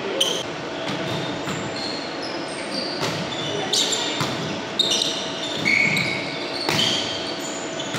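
Volleyball rally in a reverberant gymnasium: several sharp smacks of the ball on hands and forearms, with short high sneaker squeaks on the hardwood floor between them.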